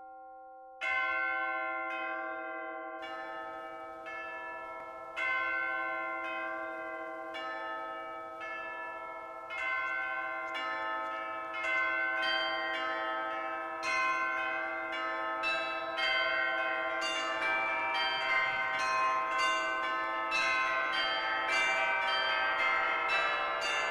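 Tuned bells struck one after another, each note ringing on and overlapping the next. The strikes come about once a second at first, then grow closer together and fuller towards the end.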